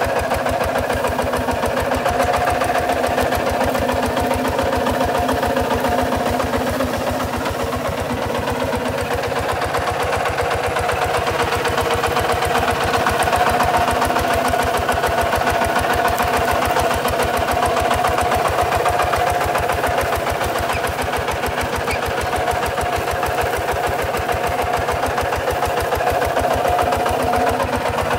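Kubota RT140 DI walking tractor's single-cylinder diesel engine chugging steadily while the tractor pulls through dry field soil.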